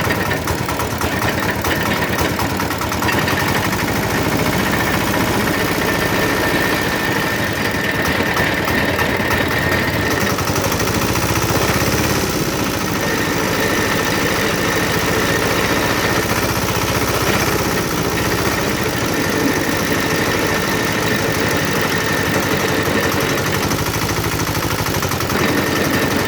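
Sugar cane juice machine running steadily, its motor and crushing rollers giving a dense mechanical rumble with a thin whine that fades out briefly partway through and returns.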